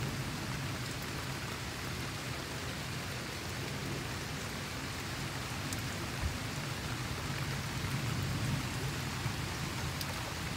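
Heavy rain pouring steadily on trees, lawn and pavement in a thunderstorm, with a low rumble beneath it that swells a little about eight seconds in.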